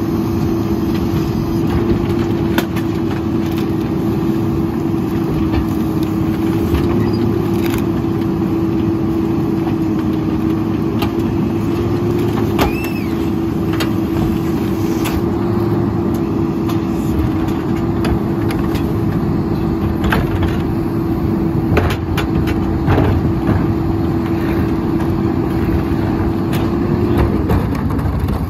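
Peterbilt garbage truck with a split Heil rear-loader body running with a steady, constant-pitch whine while its cart tippers lift and dump carts into the hopper. Scattered knocks and bangs of carts and tipper come on top, with a brief squeal midway. The whine cuts off about a second before the end.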